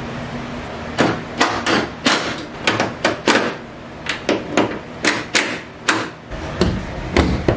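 An irregular run of sharp clicks and knocks, about fifteen over six seconds, from a car hood being handled on its hinges and its bolts being fastened. A low steady hum comes first and fades out about a second in.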